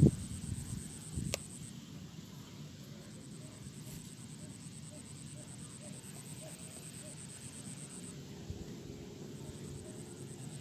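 Steady high-pitched insect chirring over a faint outdoor background. A knock right at the start and a sharp click about a second in.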